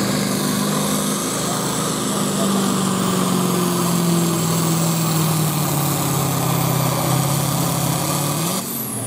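Farm tractor's diesel engine running flat out under load while pulling a weight-transfer sled. It makes a steady drone that sinks slowly in pitch as the sled bogs it down. Near the end it rises briefly, then falls away.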